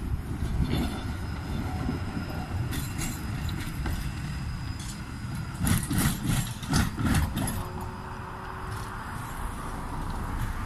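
Tram running past on its track, its wheels giving a quick cluster of sharp knocks over the rail joints about six to seven seconds in, over a steady low rumble.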